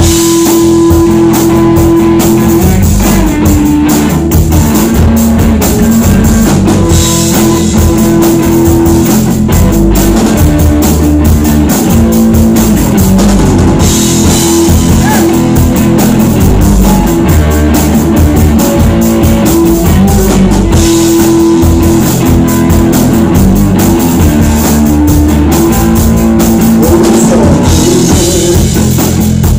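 Live rock band playing an instrumental passage, loud: electric guitars over a drum kit with a steady beat and held guitar notes.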